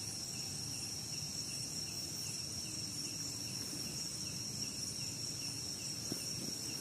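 Night insects: a steady high-pitched trill with a second insect chirping about twice a second, over a low background rumble.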